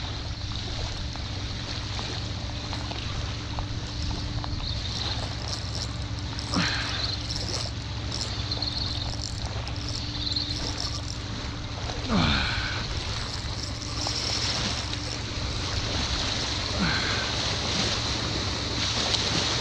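Wind buffeting the microphone over small waves lapping on a shell beach: a steady rushing noise with a heavy low rumble.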